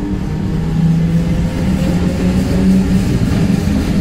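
Electric double-deck commuter train on the adjacent track, its motor hum rising slightly in pitch over a low rumble as it gathers speed.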